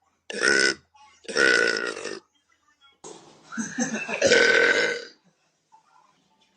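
Young woman burping deliberately: two short, loud burps, then a longer drawn-out one about three seconds in.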